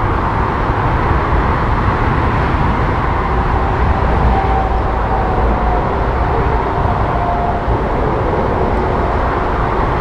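Airbus A310 (RCAF CC-150 Polaris) jet engines climbing away after takeoff: a steady, loud roar with a faint whine that drifts slightly lower in pitch as the aircraft recedes.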